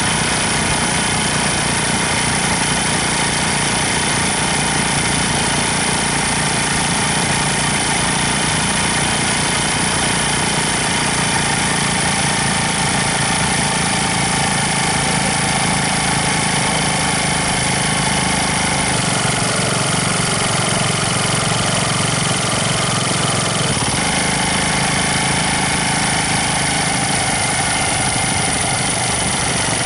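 Motorcycle engine running steadily while riding, heard from on the bike itself; the engine note changes about two-thirds of the way through.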